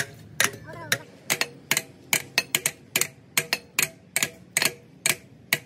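Quick, uneven hammer taps on metal, about three to four a second, each a sharp strike with a brief ring.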